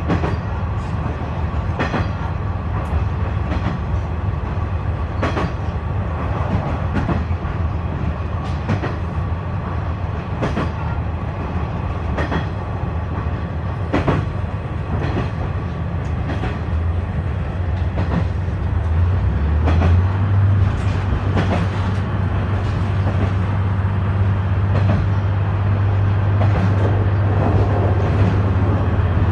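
Inside a KiHa 126 series diesel railcar under way: the steady drone of the diesel engine and wheels, with a clack from the rail joints about every two seconds. The engine drone grows louder about two-thirds of the way through.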